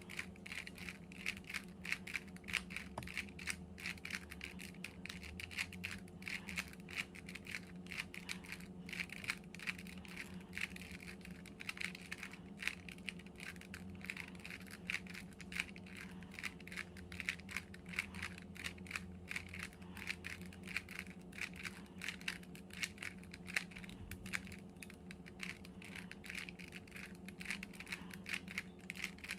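Plastic 3x3 Rubik's Cube being twisted over and over, its layers clicking and clacking in a rapid, continuous rattle, over a steady low hum.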